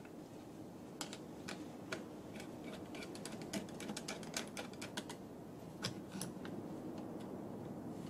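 Flat-blade screwdriver turning a slotted camera bolt in an aluminium quick release plate, tightening it to the camera: a run of irregular light metal clicks that ends about six seconds in.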